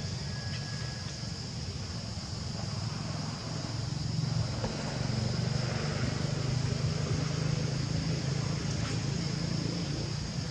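A steady low engine hum that gets louder about four seconds in, over a constant high hiss.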